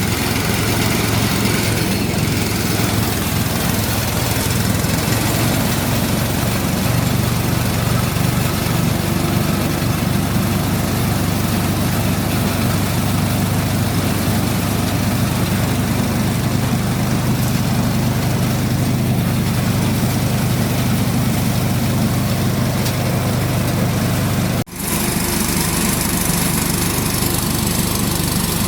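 Small engine-powered rice thresher running steadily: an even engine hum under a dense hiss. The sound drops out for an instant about 25 seconds in.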